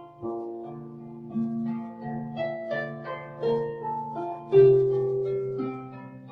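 Harp music: a calm, unhurried melody of plucked notes that ring on over low sustained bass notes, with a stronger low chord about two-thirds of the way through.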